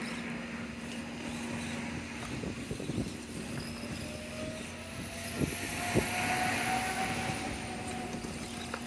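Small electric motor and gears of a 1/24-scale RC rock crawler whining as it creeps over rocks, the whine rising slightly in pitch through the second half. There are a couple of sharp clicks of tyres and chassis on stones past the middle, over a steady low hum.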